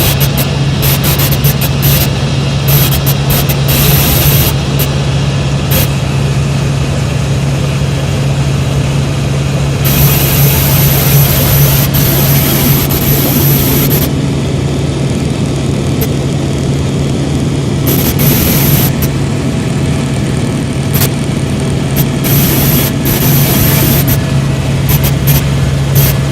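Helicopter running steadily: a loud, unbroken drone with a constant low hum under it.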